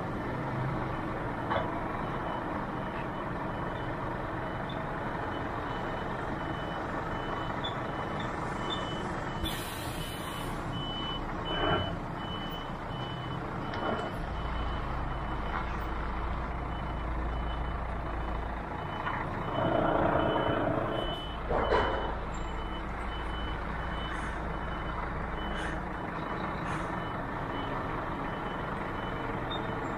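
Truck reversing alarm beeping at an even pace, a single high tone, over a diesel engine running steadily. About two-thirds through a louder rush of noise rises and falls, and there are a couple of short knocks.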